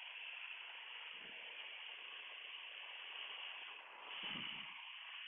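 Steady hiss of the aircraft's headset intercom audio feed, with the cabin noise held down to a faint even rush. There are two soft low thumps, about a second in and just after four seconds.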